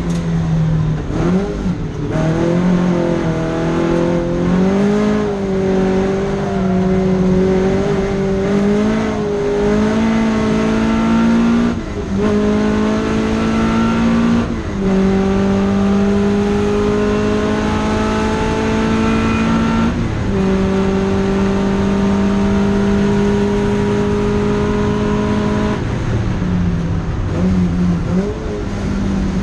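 Datsun Fairlady 2000 (SR311) roadster's 2.0-litre four-cylinder engine under hard acceleration on a race circuit: the revs climb steadily, then drop sharply at each upshift, several times over. The pitch wavers in the first stretch and falls away near the end as the throttle comes off.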